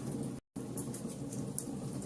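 Fire burning with a steady low rumble and scattered sharp crackles and pops. The sound cuts out completely for a split second about half a second in.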